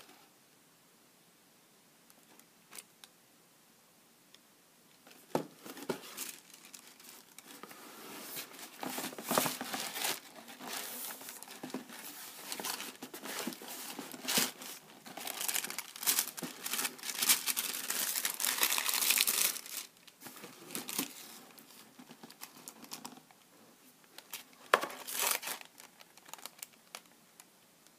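Shoe-box tissue paper crinkling and rustling as it is unfolded by hand, in irregular bursts for about fifteen seconds, with a last short burst near the end.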